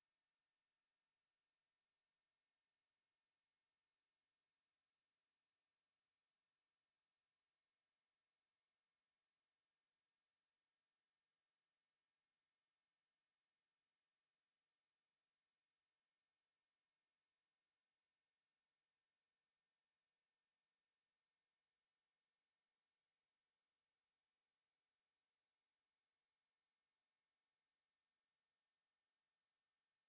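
A pure 5776 Hz sine-wave test tone, held steady at one pitch and level.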